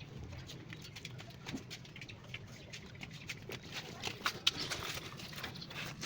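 Scattered light clicks and taps of parts being handled as a new ignition module is fitted into place, over a low steady hum.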